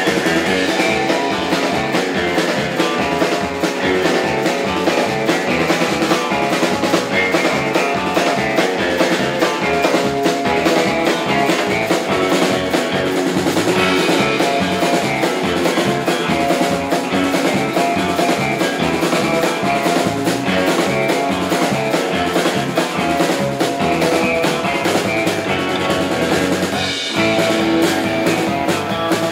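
Live instrumental rautalanka, Finnish guitar rock: electric guitar over bass guitar and a drum kit keeping a steady beat. The band pauses briefly about 27 seconds in, then plays on.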